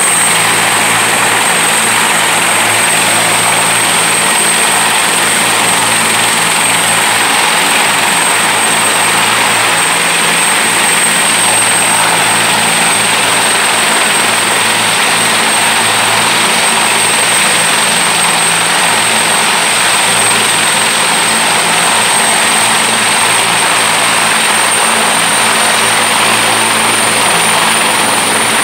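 Bell 212 military helicopter running on the ground with its rotor turning: a steady high turbine whine over a lower steady hum, the whine rising slightly in pitch near the end.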